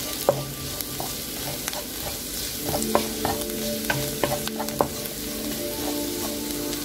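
Sliced shallots, garlic, green chillies and curry leaves sizzling in coconut oil, the shallots and garlic nearly softened. A wooden spatula stirs them around a nonstick pan with irregular scraping clicks.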